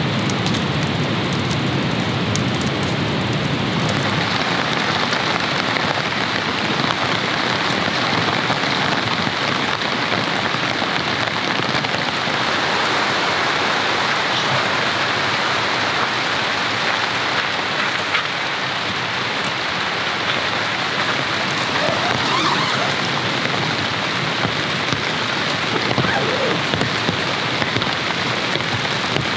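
Heavy rain falling steadily on a camp tarp and tent shelter, a dense, unbroken hiss of drops.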